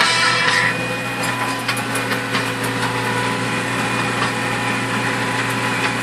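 Claas Ares 567 ATX tractor's diesel engine running steadily while ploughing.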